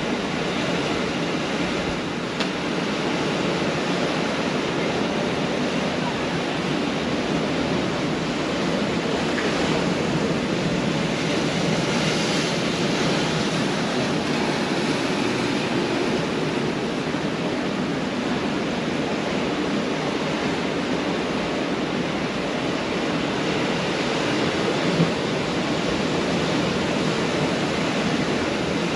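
Pacific Ocean surf washing onto a beach: a steady rush of breaking waves that swells a little partway through, with a couple of brief ticks.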